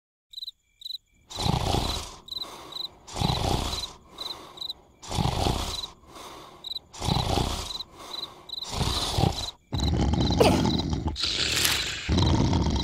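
Exaggerated cartoon snoring from a sleeping larva: a loud rasping snore about every two seconds, each followed by a softer one, with crickets chirping steadily behind it. From about ten seconds in the snoring runs on almost without pause.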